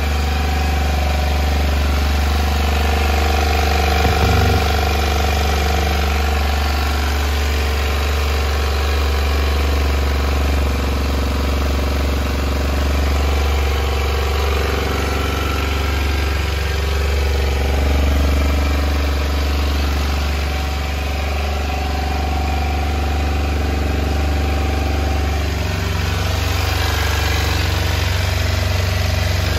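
Kawasaki Ninja 125's single-cylinder engine idling steadily.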